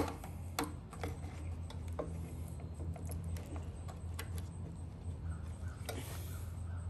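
Scattered light clicks and taps of hands working at a motorcycle's plastic turn-signal and taillight parts, feeling for a release tab, over a steady low hum.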